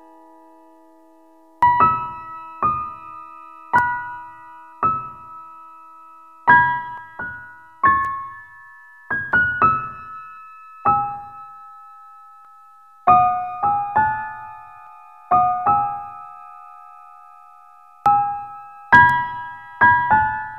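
Background music: a slow piano melody of single struck notes, each ringing out and fading, starting after a sustained chord dies away about a second and a half in.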